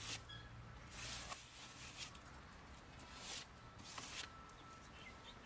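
A few short scraping strokes, one after another with pauses between, typical of a tool or brush working over the floor of a chicken coop during cleaning.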